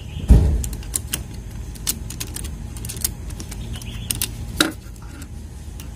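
Plastic clicks and knocks of a mini tripod's phone clamp being handled and fitted onto its mount, with a heavy thump about a third of a second in, over a low steady rumble.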